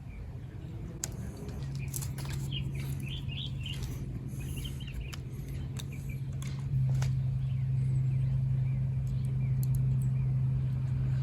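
A steady low mechanical hum that starts shortly in and gets louder about seven seconds in, with birds chirping and small clicks from handling wires and tools.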